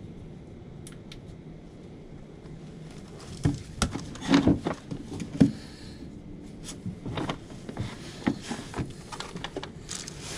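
Scattered knocks, scrapes and rustling of a person moving about and handling things close to the microphone, starting about three and a half seconds in.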